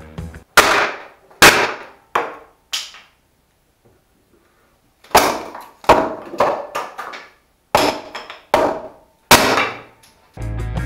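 Leftover pine board being bashed against a wooden workbench and broken apart by hand: a series of loud, sharp wooden bangs and cracks. After four quick blows there is a pause of about two seconds, then more blows follow.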